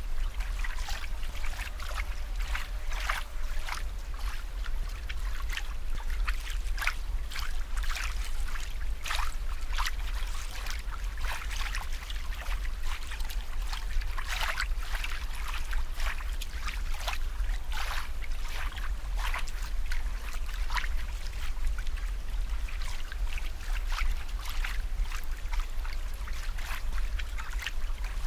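Water trickling and bubbling steadily, with many small irregular splashes and a constant low rumble underneath.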